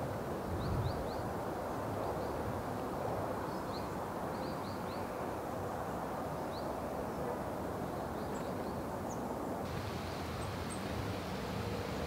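Steady low outdoor background rumble with short, high bird chirps scattered through it, often two or three in quick succession. The background hiss changes abruptly near the end.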